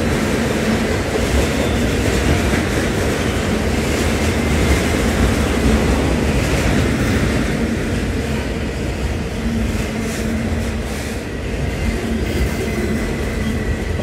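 Freight train autorack cars rolling past: a steady rumble and clatter of steel wheels on the rails.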